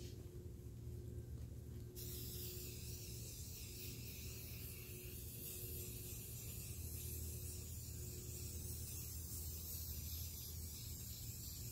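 Aerosol can of red spray paint hissing in a steady, continuous spray, starting about two seconds in, over a steady low hum.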